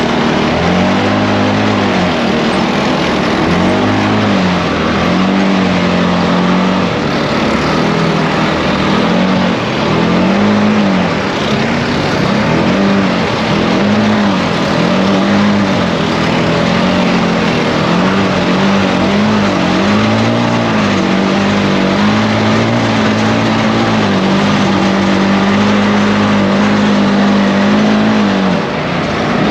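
ATV engine running under way on a trail, its pitch rising and falling every couple of seconds as the throttle is worked, then holding steady over the last several seconds.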